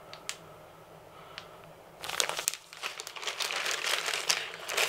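Plastic packaging crinkling as a white poly shipping mailer is handled and rummaged through. It starts about two seconds in, after a couple of faint clicks.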